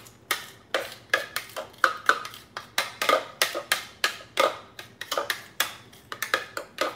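A spoon knocking and scraping against a food processor bowl while scooping out freshly minced garlic: a quick, irregular run of sharp taps, about three or four a second.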